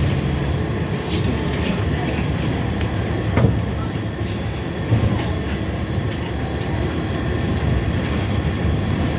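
Scania K320IB4 coach running on the road, heard from inside: a steady low engine and road rumble with small interior rattles and clicks, and a couple of louder knocks.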